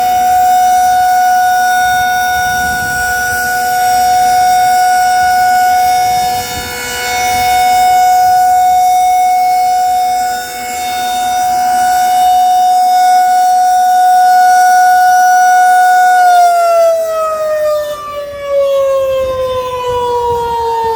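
Federal Signal 2001-SRN rotating outdoor warning siren sounding its steady alert tone, swelling and fading every few seconds as it turns. About sixteen seconds in the tone starts to wind down, its pitch falling steadily as the alert ends.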